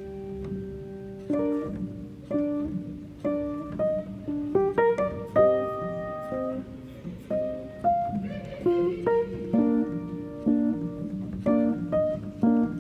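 Background music: a melody of plucked guitar notes, with sustained low notes underneath.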